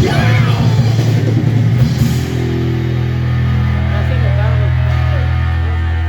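Live rock band playing loud with drums and electric guitar; about two seconds in the full band drops out and a sustained electric guitar chord rings on steadily.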